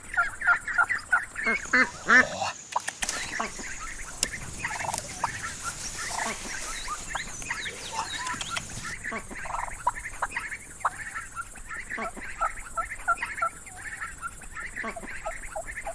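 A domestic turkey and other fowl giving short, rapid clucking calls over and over. From about 2 s to 9 s in, a rustling hiss runs under the calls, as of grass being pushed through.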